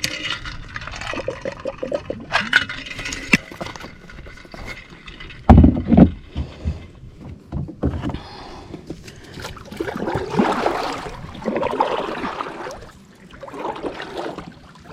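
Kayak paddle strokes swishing through the water, about one every one and a half to two seconds, with scattered knocks and two heavy thumps against the kayak about five and a half seconds in.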